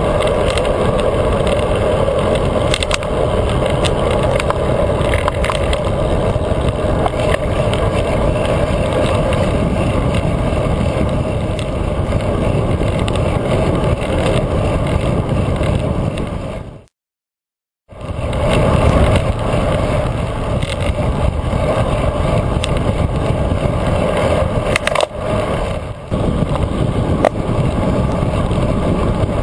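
Steady rushing wind and tyre-on-road noise picked up by a GoPro camera mounted on a road bike ridden at speed, with scattered small clicks. The sound drops out completely for about a second partway through.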